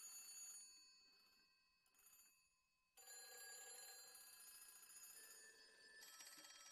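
Faint telephone ringing. One ring fades away at the start, a new one starts suddenly about three seconds in, and near the end it turns into a rapid trill.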